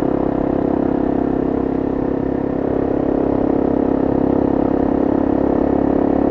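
Honda CRF250M's single-cylinder four-stroke engine running at steady, held revs while riding, heard from on the bike with wind noise underneath.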